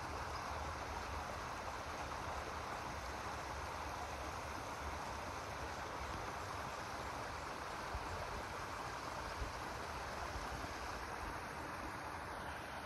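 Small waterfall splashing down a rocky cascade into a pond: a steady rushing of water that grows a little fainter near the end.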